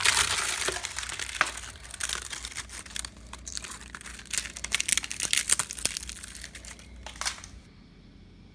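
Termites working inside wood: a dense crackling of tiny clicks, the sign of an active termite infestation. It thins out and then stops abruptly near the end.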